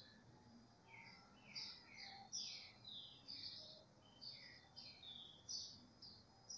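Faint bird chirping: a quick, continuous string of short, high chirps, many of them sliding down in pitch.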